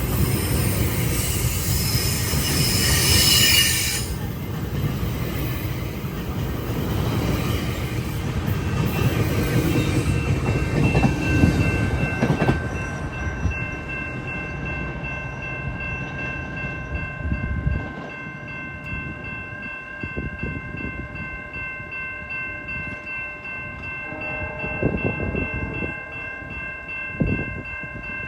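A GO Transit commuter train running past close by: wheels rumbling and clacking on the rails, loudest over the first dozen seconds. About twelve seconds in the rumble eases and a set of steady high whining tones sets in and holds.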